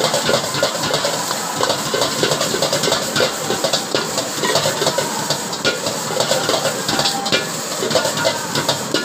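Chicken fried rice sizzling in a wok on a gas burner while a metal ladle scrapes and clatters against the wok in quick, continuous strokes as the rice is stirred and tossed.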